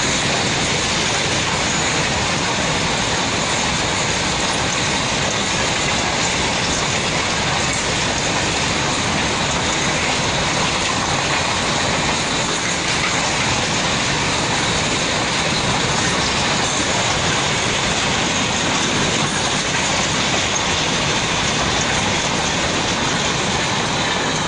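Indian Railways goods train of covered boxcar wagons running past at speed: a steady, loud rush of steel wheels on the rails.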